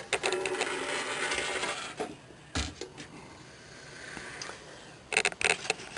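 Handling noise: light metallic clicks and rattles, with a single knock about two and a half seconds in and a cluster of sharper clicks near the end.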